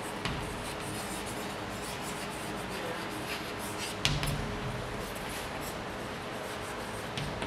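Chalk scratching and tapping on a chalkboard as words are written, with a sharper knock about four seconds in, over a steady background hiss.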